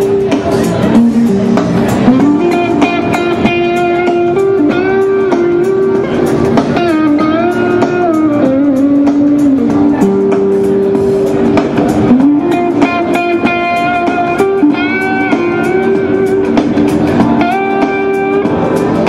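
Electric guitar played through an Avid Eleven Rack amp modeler: a lead line of sustained notes with string bends that glide up and down.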